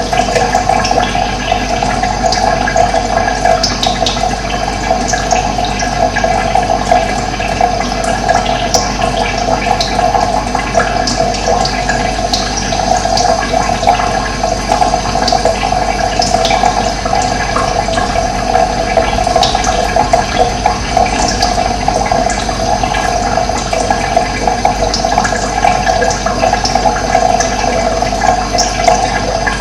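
Running water rushing steadily, with short, high bird chirps scattered through it.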